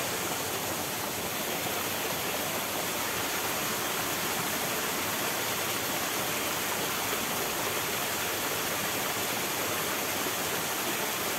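Running water, a steady even rush of a stream or small cascade with no breaks.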